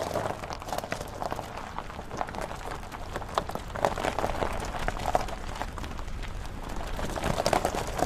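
Footsteps crunching on the ground, a dense run of irregular crunches from someone walking briskly.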